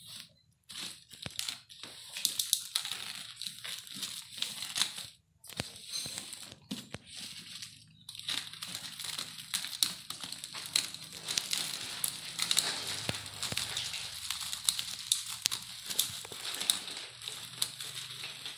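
Plastic wrapping and packing tape on a parcel crinkling and tearing as it is cut open, with many sharp little clicks. The rustling comes in short patches at first and becomes near-continuous from about eight seconds in.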